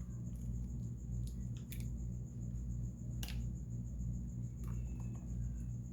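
Raw eggs being worked in a bowl: a few separate light clicks and a soft wet squish, over a steady low hum.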